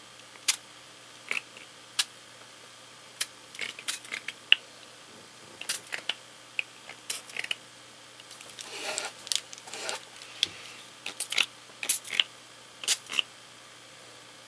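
Short spritzes from a small pump-spray bottle of Brutus Monroe Surface Spray ink: about twenty quick sprays at irregular intervals, with a longer, rougher stretch of spraying around nine seconds in.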